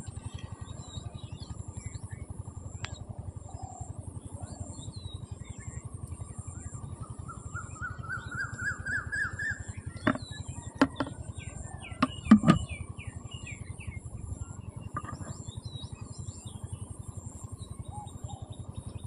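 Birds chirping over a steady low background rumble, with a series of calls rising in pitch in the middle. About halfway through, a few sharp knocks are the loudest sounds.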